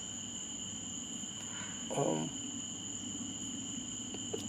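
A night chorus of crickets makes two steady high-pitched drones. Underneath runs a low steady rumble from a distant freight train coming up the line. About two seconds in, a man gives one brief murmur.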